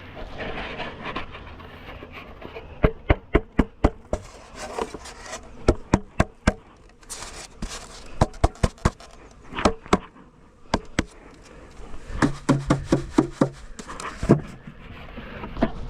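Runs of sharp taps and knocks on wooden beehive equipment being handled as bees are cleared out of an old nucleus box, several quick knocks at a time with pauses between.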